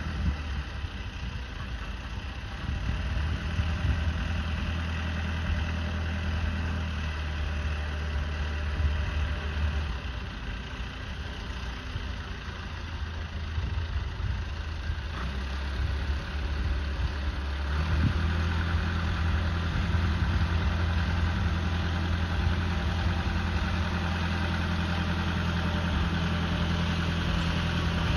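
Baguley-Drewry narrow-gauge diesel locomotive's engine running steadily as it slowly hauls coal wagons forward. The engine note thins out about seven seconds in and picks up again, a little louder, about eighteen seconds in.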